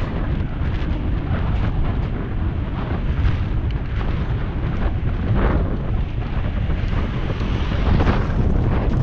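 Wind buffeting the GoPro's microphone while riding a bicycle: a steady, loud low rumble, with brief louder surges about halfway through and near the end.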